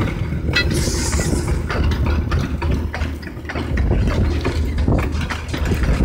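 Miniature railway diesel locomotive running as it hauls its carriages past, a steady low engine rumble with the rattle and clicking of small wheels on the track.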